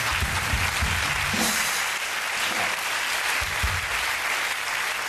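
Studio audience applauding steadily, with music playing faintly underneath.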